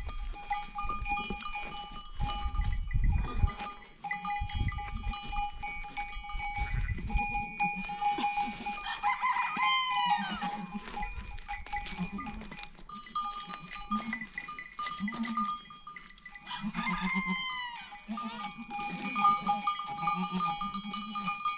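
Animal bells on a flock of goats and sheep clinking steadily, with two animal calls rising and falling, about ten seconds in and again near seventeen seconds.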